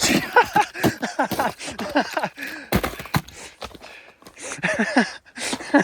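People talking in short, indistinct bursts, with frequent sharp knocks and clicks on the microphone.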